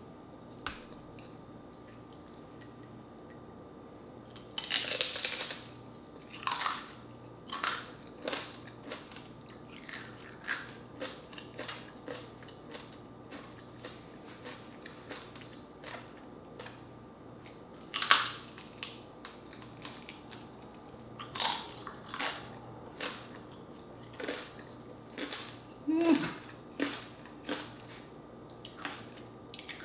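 Biting and chewing deep-fried crispy pork skin (crispy pata): irregular crackly crunches over quieter chewing, with a few louder crunching bites.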